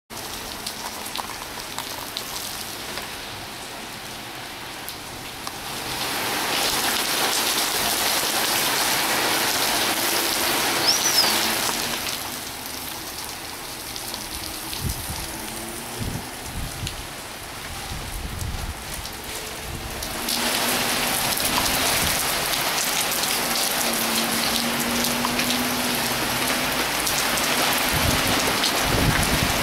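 Heavy rain pouring down and spattering on the ground and parked cars, a steady hiss that grows louder about six seconds in, eases around twelve seconds, and swells again about twenty seconds in.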